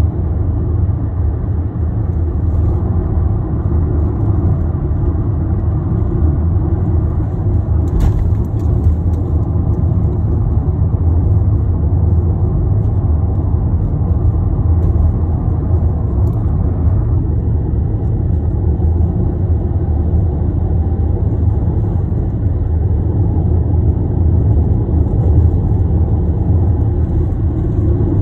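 Car road noise heard from inside the cabin while driving: a steady low rumble of engine and tyres on the road, with a brief click about eight seconds in.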